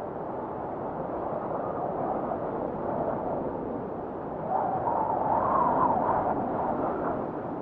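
A soft, rushing, wind-like ambient wash with no clear notes, swelling louder about four and a half seconds in and easing back near the end.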